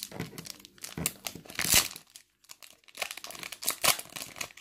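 Trading-card pack wrappers being torn open and crinkled by hand, in irregular crackling bursts with a short pause a little past halfway.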